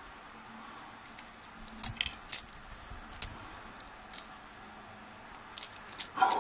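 Light metallic clicks and clinks of keys and a padlock being handled: a few sharp clicks about two seconds in, a single one a second later, and a quick cluster near the end.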